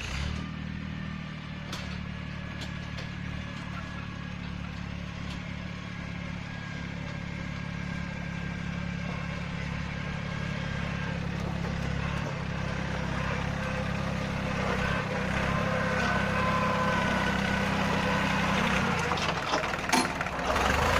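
Yanmar 1145 tractor's diesel engine running steadily. It cuts in abruptly at the start and grows gradually louder, with a few short knocks near the end.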